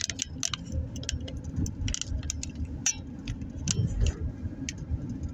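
Car cabin while driving slowly: steady low road and tyre rumble, with light irregular rattling and clicking from loose items inside the car.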